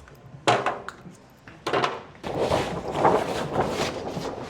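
A shag rug being handled and moved: a couple of short knocks, then rustling from about halfway through.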